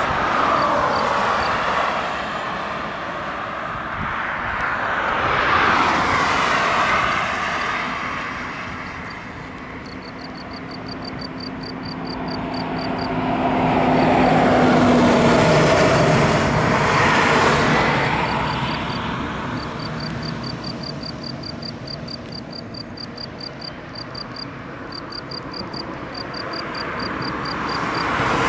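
Male European field cricket (Gryllus campestris) calling from its burrow: steady trains of short, high, even chirps, pausing now and then and resuming, loudest near the end. Cars passing on the road swell and fade over it and are louder than the cricket.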